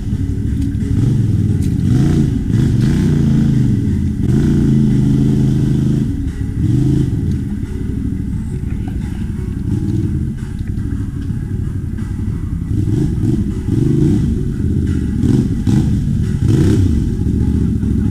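ATV engine revving up and down over and over, its pitch rising and falling. It eases off somewhat midway, then picks up again.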